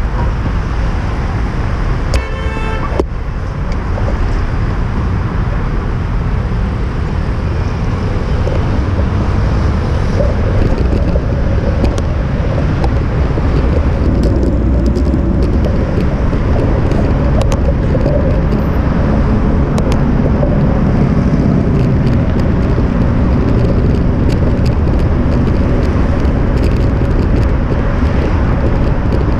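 Wind rumbling over a bicycle-mounted action camera's microphone as it rides, mixed with passing road traffic. A car horn honks once, about two seconds in, for under a second.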